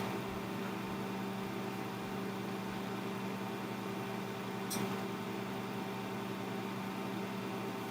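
Old 12-volt three-wire computer cooling fan running steadily: a constant hum with a steady tone and its overtones. A single brief click about five seconds in.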